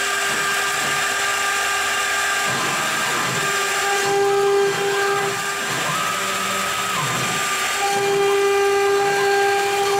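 CNC router spindle running with a steady high whine as its bit plunges into a wood board and starts carving. From about two and a half seconds in, the stepper motors add tones that start, stop and change pitch as the machine moves.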